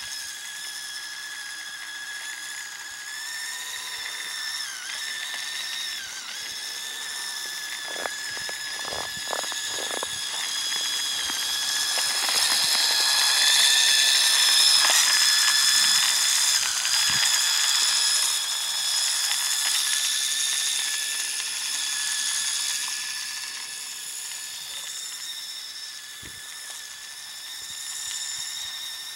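Radio-controlled snowmobile built from Traxxas parts, its motor and drivetrain giving a steady high whine that dips briefly in pitch twice and swells loudest in the middle as it runs through the snow. A few short knocks come about a third of the way in.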